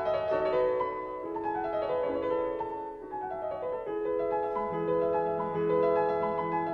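Background piano music: runs of notes stepping downward over held chords, with lower notes joining about halfway through.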